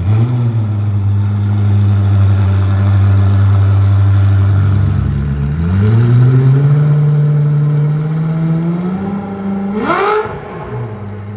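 Koenigsegg Jesko's twin-turbo V8 fast-idling right after a cold start. The idle steps up about halfway through. Near the end comes one short rev blip, and then it settles back to a lower idle.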